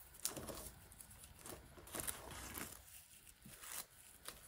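Black crinkle shred rustling and crinkling as it is pulled off a package by hand, in soft, scattered rustles.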